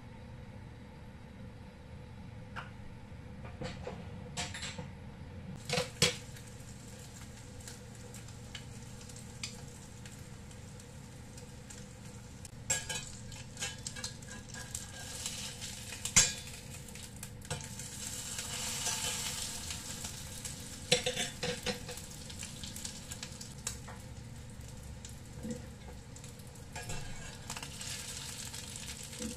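Minced pork patty sizzling in oil in a stainless steel frying pan, with sharp clinks of a metal spatula against the pan now and then. The sizzle swells about two-thirds of the way through.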